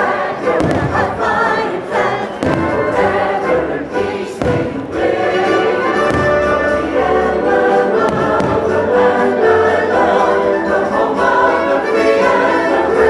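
Patriotic fireworks-show soundtrack: orchestral music with a choir singing, broken by several low thuds of fireworks bursting.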